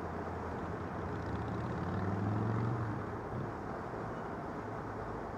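Steady urban traffic hum, with a motor vehicle's engine passing, loudest about two seconds in and then fading.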